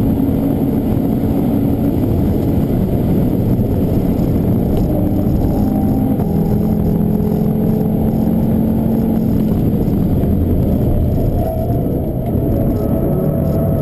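Audi TT RS turbocharged five-cylinder engine heard from inside the cabin, pulling at high revs at speed, then with the car slowing for a corner, the engine note steps through downshifts.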